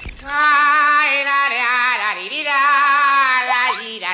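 A voice singing long held notes in the segment's opening jingle, with a short dip in pitch about halfway through.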